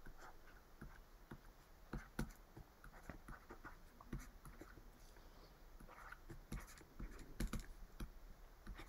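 Faint, irregular clicks and light taps of handwriting input on a computer, a stylus or mouse putting down strokes on a digital whiteboard, a little busier near the end.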